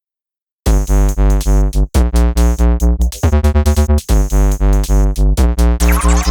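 Electronic music with a heavy synth bass pulsing in a steady beat, starting abruptly after a brief silence; a rising synth sweep comes in near the end.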